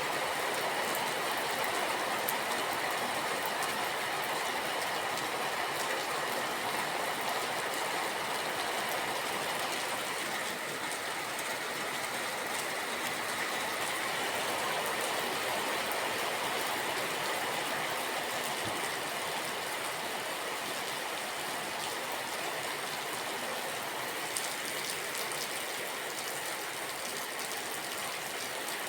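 Steady rain falling: an even hiss with faint scattered drop ticks, level throughout.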